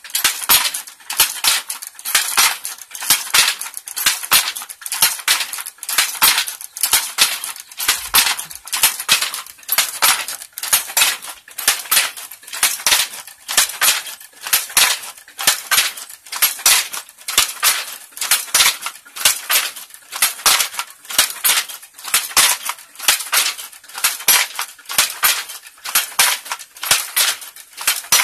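Wooden treadle hand loom weaving Troso cloth: a steady, rapid clatter of wooden clacks and knocks as the shuttle is thrown back and forth and the beater packs each weft thread in, a few strokes every second without a break.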